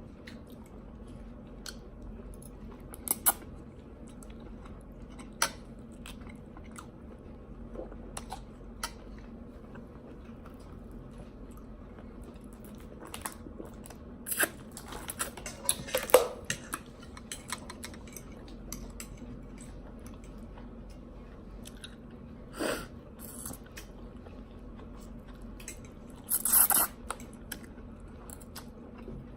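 People chewing and biting food close to the microphone, with scattered small clicks and a few louder clattering knocks about halfway through and again near the end.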